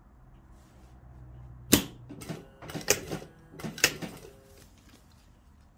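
Sewing machine starting to stitch in short, uneven starts: a sharp clack about a second and a half in, then a couple of seconds of irregular mechanical clacking with a faint motor hum underneath.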